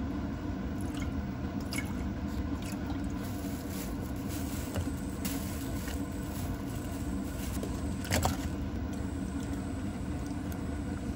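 Cooking in a stainless steel pot on an induction cooktop: metal tongs and ingredients moving in broth, with scattered light clicks and wet handling sounds over a steady hum.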